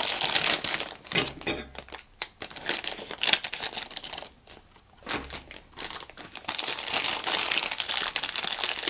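Plastic packaging crinkling and rustling as a tool part is unwrapped, with small clicks and a short lull midway.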